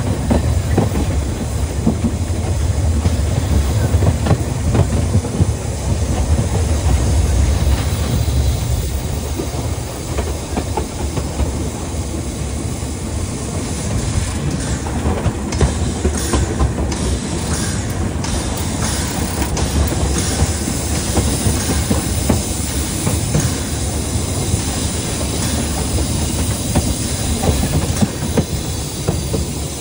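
Saxon narrow-gauge steam train running, its wheels clacking over rail joints above a steady low rumble and hiss.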